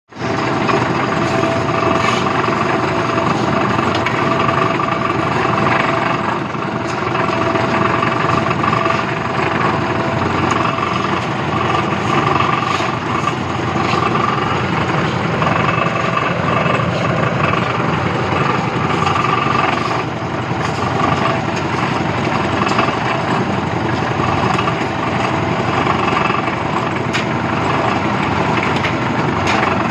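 Concrete mixer machine running steadily, a continuous engine-and-drum noise with a steady whine and an occasional knock.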